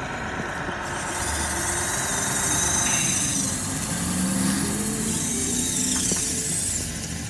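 Small electric motors of an RC CAT 308 excavator, an electric non-hydraulic Bruder conversion, whining as its boom and arm move. The high whine starts about a second in and shifts in pitch as the movements change.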